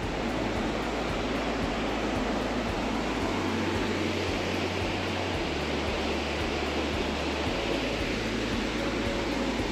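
Fast mountain stream rushing over boulders in a steady, unbroken wash of whitewater noise, loud enough to drown out speech.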